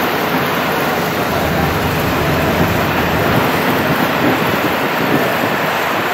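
Wind blowing across the microphone: a steady, even rushing noise with no distinct events.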